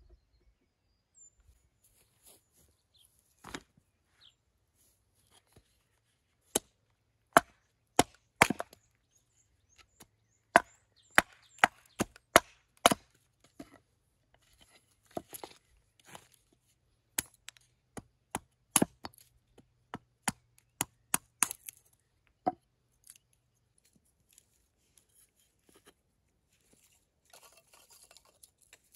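Kindling being split from a block of wood on a wooden chopping stump: a long run of sharp, irregular chops and wooden knocks that stops about two-thirds of the way through. Faint rustling of the split sticks near the end.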